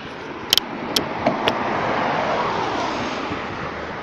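A single Class 66 diesel locomotive running light and passing at speed. Its noise swells to a peak a little past halfway and then eases, with several sharp clicks in the first second and a half.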